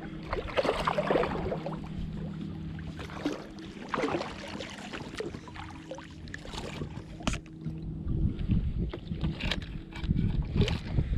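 Kayak fishing noises as a small snook is reeled in and landed: short knocks and rustles of handling and water around the kayak. A steady low hum runs underneath and stops about eight seconds in.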